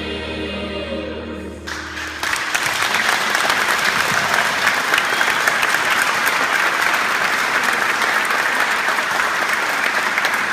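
A gospel choir and its accompaniment hold a final chord that ends about two seconds in, as audience applause breaks out and carries on steadily.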